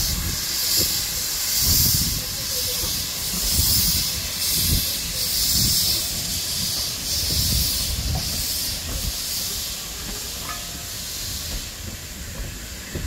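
Steam locomotive W.G. Bagnall No. 2 (works no. 2842) chuffing at about one beat a second as it pulls its coaches away, the exhaust beats fading near the end. The coach wheels rumble past close by.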